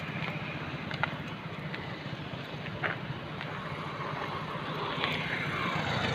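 Road traffic: a motor vehicle running over a steady low hum. Near the end it grows louder with a falling pitch as it passes. A few faint clicks.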